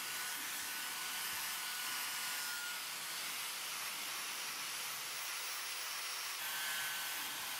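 Angle grinder with a 120-grit flap disc running against the edge of a metal wheel rim, taking the sharp corners off: a steady hiss with a faint high whine that fades out early and comes back near the end.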